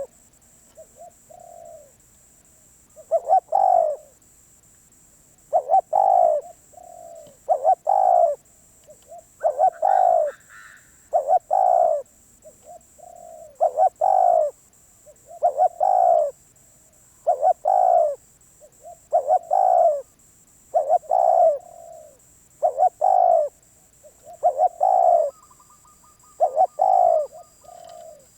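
Spotted dove cooing over and over: each phrase is a soft short note or two and then a loud coo, repeated about every two seconds.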